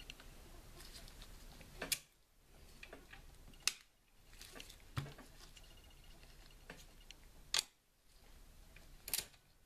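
The metal folding stock of an Umarex Legends MP 40 CO2 BB gun being swung down and back up, giving five sharp clicks spaced unevenly, about two to three seconds apart, as it pivots.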